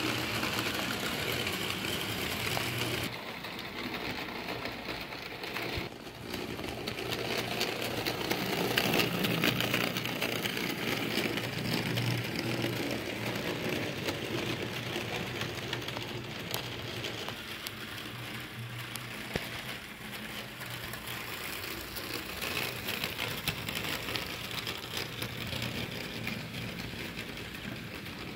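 Model train coal hopper cars rolling along the track, a steady whirring rattle of wheels on rails.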